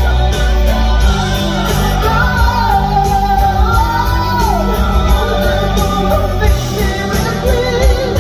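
Background music: a song with a held, gliding sung melody over heavy bass.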